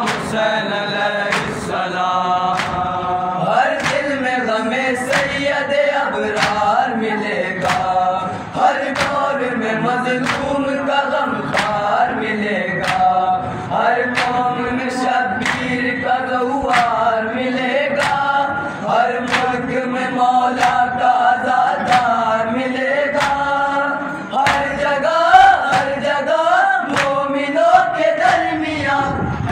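Men of an anjuman chanting an Urdu noha for Imam Hussain in chorus. A steady beat of sharp hand slaps, about one every two-thirds of a second, keeps time with it: the matam, chest-beating of mourners.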